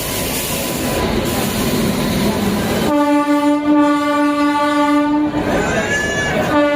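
Train rumble and wheel clatter for about three seconds, then an Indian Railways locomotive horn sounds one long, steady blast of about two and a half seconds. A brief higher tone rises and falls after it, and the horn starts again at the very end.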